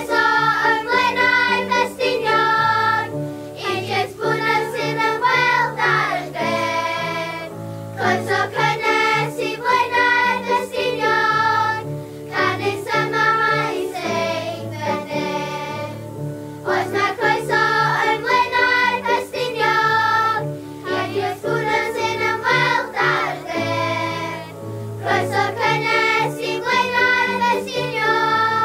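Children's school choir singing a song together, phrase after phrase with short breaths between, over low sustained accompaniment notes.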